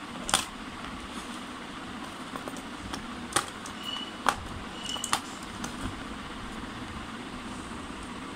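Sharp clicks and taps from handling the plastic parts of a Tenda N301 wifi router as it is taken apart, with two short high squeaks in the middle, over a steady background hiss.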